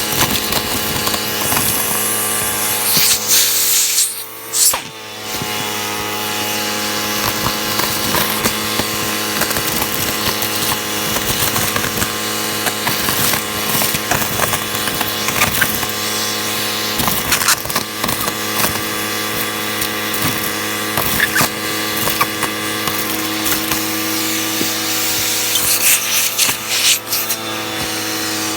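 Hoover vacuum cleaner running with a steady motor whine and rushing air. The sound dips sharply for a moment about four seconds in, then comes back.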